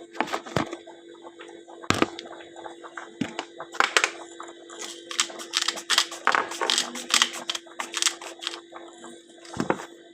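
Spice containers being handled over a small bowl while salt and pepper are added: an irregular run of clicks, taps and crackles, with a few louder knocks and a steady low hum underneath.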